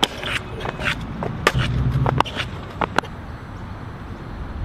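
Stunt scooter riding on concrete: wheels rolling with a low rumble through the middle, and a series of sharp clacks as the scooter hits, slides on and lands off a ledge.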